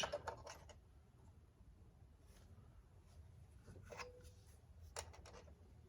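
Near silence with a low hum and a few faint light clicks, the clearest about four and five seconds in.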